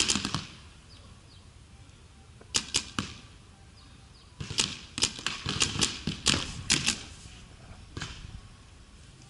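Paintball markers firing in quick strings of sharp shots: a rapid burst at the start, three shots about two and a half seconds in, a longer run of rapid shots from about four and a half to seven seconds, and a single shot about eight seconds in.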